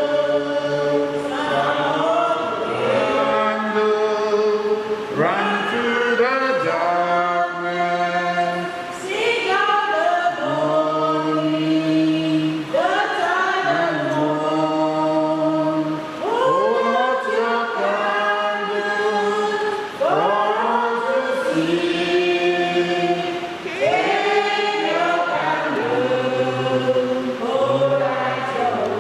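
A choir singing a slow hymn in harmony. Held notes run in phrases a few seconds long, with short breaks between them.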